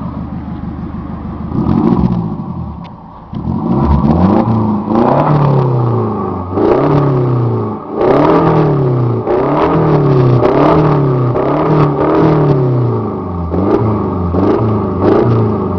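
A car engine running, then revved over and over in short blips, about one a second, the pitch rising and falling each time, with a sharp crack at several of the peaks.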